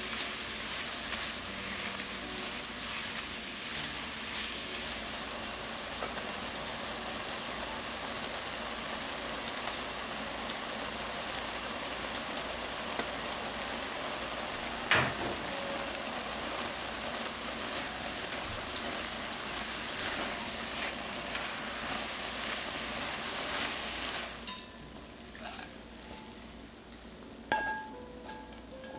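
Sliced pork, fish cake strips and shiitake mushrooms sizzling steadily as they are stir-fried in a stainless steel pan, with a sharp tap about halfway. Near the end the sizzle quiets and a few clinks follow.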